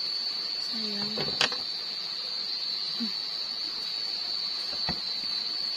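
Night insects keeping up a steady high-pitched chirring drone, with a sharp click about a second and a half in and a fainter click near the end.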